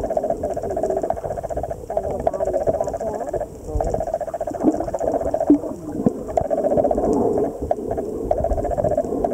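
Underwater noise: a rapid pulsing buzz that comes in stretches of one to two seconds with short breaks, over a low rumble and scattered clicks.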